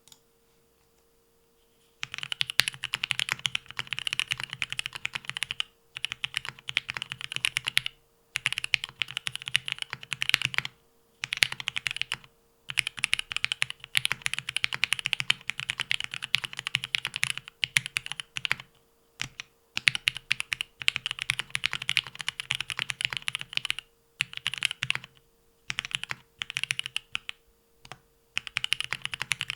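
Typing on a Leaf65 custom mechanical keyboard with lubed Marshmallow switches and Extended 2048 keycaps, resting on a deskmat. Dense runs of keystrokes start about two seconds in and carry on with brief pauses every few seconds.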